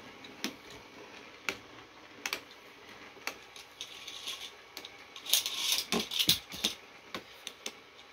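3D-printed Beyblade spinning tops clashing in a stadium: sharp plastic clicks and knocks scattered every second or so, then a rapid flurry of hits a little past halfway, over the faint whir of the spinning tops.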